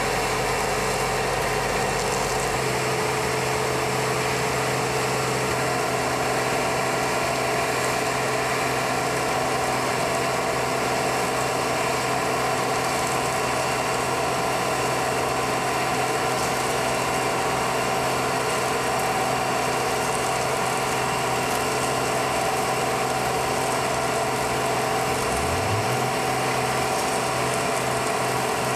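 Steady machinery noise from a dry-batch concrete plant's dust collectors: fan motors running with a constant hum and several steady whining tones. A deeper rumble drops out about two seconds in.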